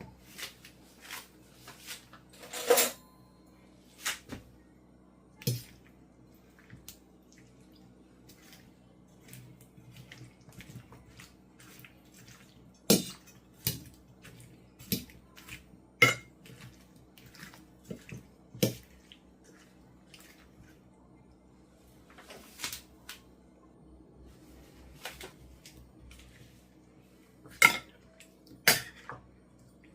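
Irregular knocks and clinks of kitchen utensils against dishes, a dozen or so sharp ones standing out among many lighter taps.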